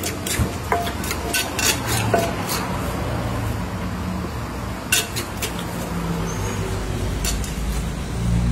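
Wooden pestle and metal spoon knocking and clinking in a clay mortar while papaya salad (som tam) is mixed, a quick run of taps in the first two seconds, then a couple of single clicks as it is served. A low steady hum grows louder near the end.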